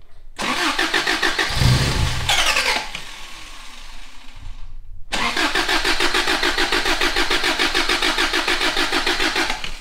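Toyota 22R four-cylinder engine cranked over by the starter in two tries of about four to five seconds each, with an even chug of roughly seven compression pulses a second. A brief heavier low burst and a rise in pitch come about two seconds into the first try.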